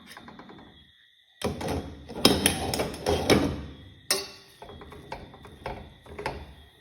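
Kitchen cookware being handled: after a short lull, a busy stretch of clattering and knocking, then scattered single knocks.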